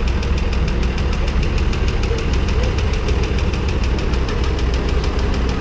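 Vintage tractor engine running close by at a slow idle, with a steady low rumble and an even knock about ten times a second.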